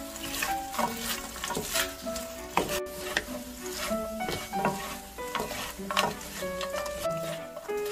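A wooden spatula stirring and scraping fried pollock skin pieces through a sticky sauce in a hot pan, with a sizzle and sharp irregular scrapes about once or twice a second. Background music with held notes plays under it.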